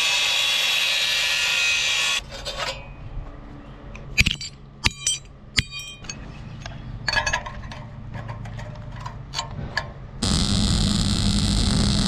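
Angle grinder's cutoff wheel cutting steel exhaust pipe, stopping about two seconds in. Then a ball-peen hammer strikes a small strip of steel on concrete in a series of sharp, ringing hits. About two seconds before the end, a welder's steady buzz starts as the strip is welded over the open exhaust inlet.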